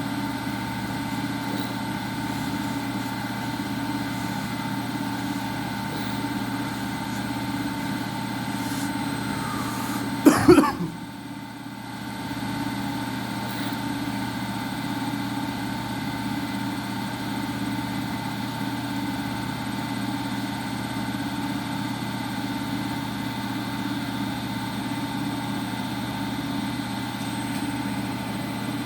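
Washing machine running with a steady motor hum. About ten seconds in a brief loud sound cuts across it, then the hum drops for a moment and comes back.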